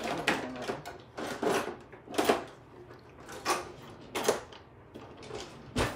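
A whisk stirring in a metal mixing bowl, clinking and knocking against its sides about once a second, with the strongest knock near the end.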